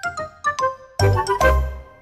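Cheerful children's logo jingle: a quick run of short ringing notes, then two chords with deep bass about a second in that ring out and fade away.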